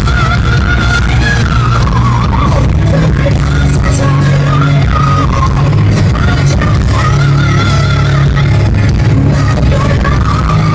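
Pop-rock music: a wavering high melody line over a steady bass and beat.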